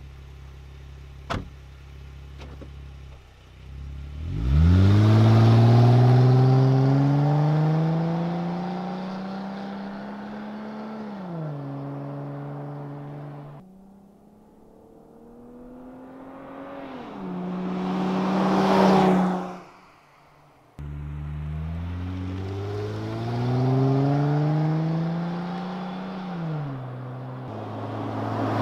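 Jeep Wrangler JKU V6 through a Dynomax Evolution exhaust: it idles, with one sharp click, then pulls away hard, its pitch climbing until an upshift drops it. Then it makes two drive-bys at about 40 and 30 mph, the engine note rising and swelling as it passes close.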